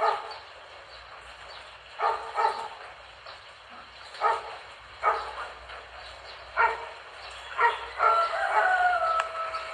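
A dog barking in single barks and quick pairs, irregularly every second or two, then near the end giving one long drawn-out call that steps down in pitch. A steady hiss of heavy rain lies underneath.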